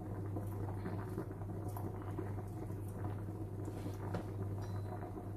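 Pasta water boiling hard in a pot, a steady bubbling, with light knife taps on a wooden cutting board as gherkins are sliced. A steady low hum runs underneath.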